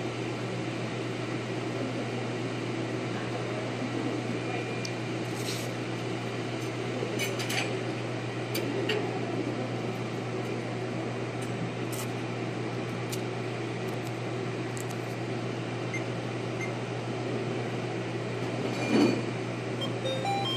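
Steady low hum of a running machine or ventilation in a small room, with a few light clicks and rustles from handling, and one louder knock near the end.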